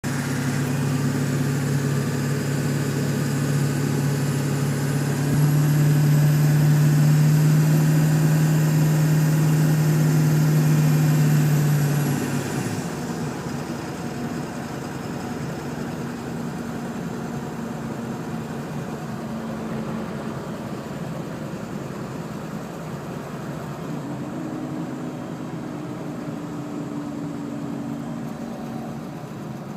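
1999 Ford 7.3 L Powerstroke turbo-diesel V8 with a 4-inch straight-pipe exhaust, running at raised revs with a high turbo whistle over the engine note. It gets louder about five seconds in, then about twelve seconds in it drops back to a steady idle and the whistle fades.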